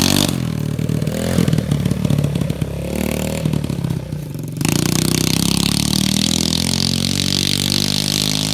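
Straight-piped 125 cc Tao Tao quad engine with no muffler, revving unevenly as the quad pulls away for the first few seconds, then running steady under throttle from about halfway on.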